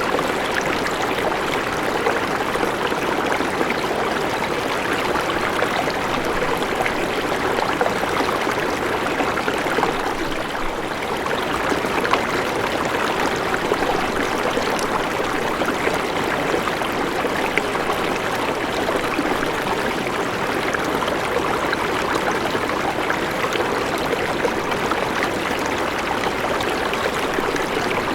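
River water running steadily over stones, a continuous rushing and babbling.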